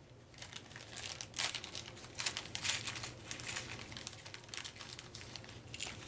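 Thin plastic bag crinkling and rustling in the hands, a run of irregular crackles.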